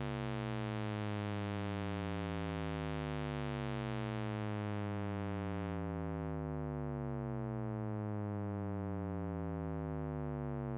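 Arturia Pigments' Harmonic engine playing a Shepard tone: a constant droning stack of sine partials that seems to keep descending in pitch without ever getting anywhere. About four seconds in, the filter cutoff is turned down and the top end goes dull.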